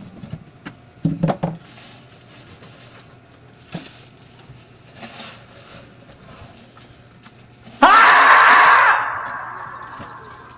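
A few faint knocks and shuffles, then about eight seconds in a sudden loud, high-pitched scream that holds for about a second and trails off.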